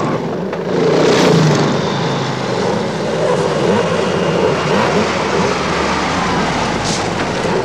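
Dirt bike engines running and revving, mixed with the engine of an open off-road vehicle driving across grass.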